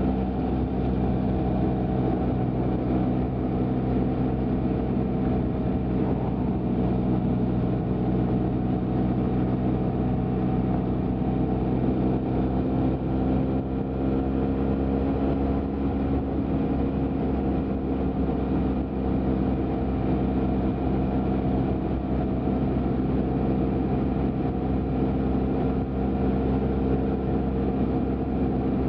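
BMW F800GT's 798 cc parallel-twin engine running steadily under the rider at an even cruising speed, its note holding at a nearly constant pitch.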